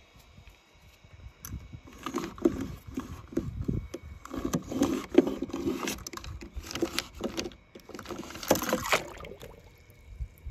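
Die-cast toy tow truck pushed back and forth over paper on a table: uneven strokes of wheels rolling and paper scraping and rustling, with small clicks. The loudest burst, near the end, is splashing as the toy goes into a tub of water.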